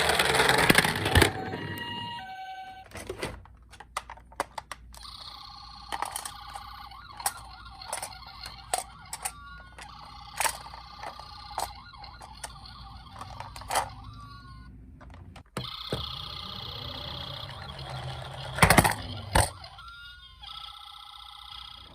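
Toy ambulance minicars playing electronic siren sounds: faint steady tones with small pitch glides, amid frequent sharp clicks and clatter of the plastic cars knocking together. A loud rattling rush fills the first second or so.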